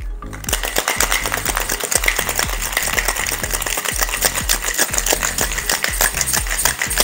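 Ice rattling fast and hard inside a metal cocktail shaker being shaken, starting about half a second in: the wet shake with ice that chills an egg-white whisky sour.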